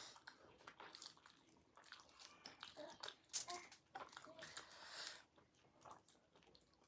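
Faint, irregular chewing and soft mouth clicks of someone eating chow mein noodles with sausage.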